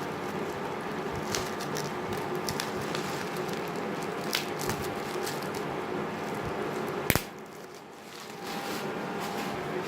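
Scattered small clicks and crackles of handling over a steady hum, with one sharp click about seven seconds in followed by a brief drop in level.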